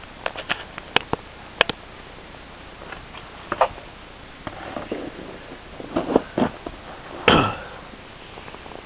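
Cardboard wand boxes being handled and moved by hand. There are several sharp taps and clicks in the first two seconds, then scattered knocks and rustles, with the loudest knock about seven seconds in.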